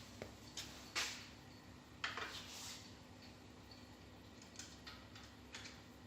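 A few light clicks and clinks, the loudest cluster about two seconds in, over a faint steady hum.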